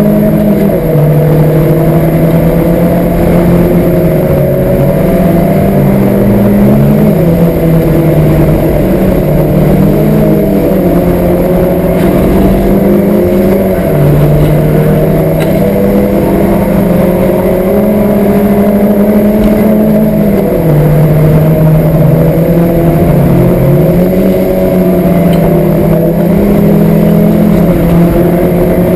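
Citroën Saxo's four-cylinder petrol engine with an aftermarket 4-branch exhaust manifold and Pipercross air filter, driven hard on a race circuit and heard from inside the cabin. The engine note holds high, steps between pitches, and several times drops sharply and climbs back.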